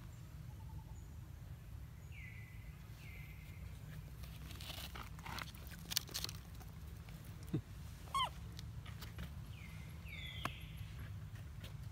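A few short, high chirps that fall in pitch, two together early on and two more near the end, with scattered sharp clicks and a steady low rumble underneath.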